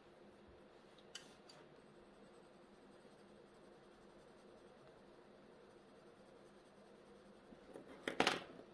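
Quiet room tone with two light clicks about a second in, then a short run of sharper clicks and taps near the end as Albrecht Dürer watercolour pencils are handled on the table while changing colour.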